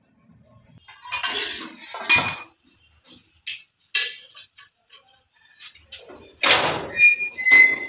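Steel double gate being unlatched: loud clanks and rattles of its metal bolt with a ringing metallic tone, about two thirds of the way in. Before that, a few scattered knocks and rustles.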